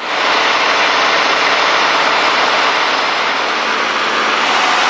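Steady cabin drone of a Cessna 210D in flight: its six-cylinder piston engine and propeller running at a constant setting, with airflow noise over the airframe. Loud and unchanging.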